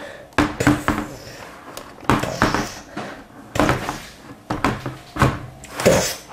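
Hulk and Hulkbuster toy figures knocking against each other and on a tabletop while being made to fight: a series of irregular hard knocks and thuds.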